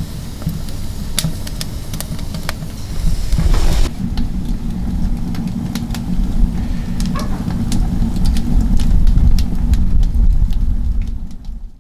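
Wind buffeting the microphone, a loud uneven low rumble, with scattered small clicks and knocks over it; it cuts off abruptly at the end.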